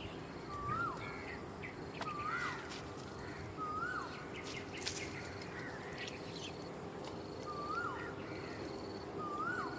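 A bird repeating a short call about every one and a half seconds, each note rising briefly and then dropping sharply, over a steady high-pitched insect drone.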